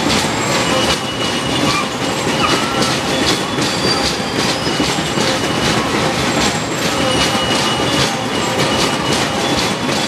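Fairground spinning-car ride running: a steady rolling rumble and clatter from its wheels on the track, with short high metallic squeals coming and going every second or two.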